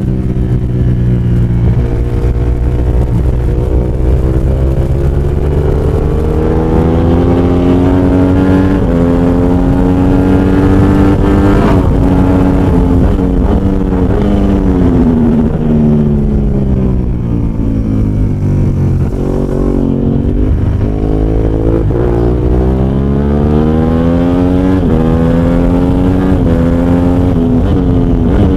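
Ducati 916 Superbike's V-twin engine at racing speed, heard on board: it climbs in pitch through the gears with sudden drops at each upshift, winds down as the bike slows and changes down for a corner through the middle, then pulls hard again with more upshifts near the end.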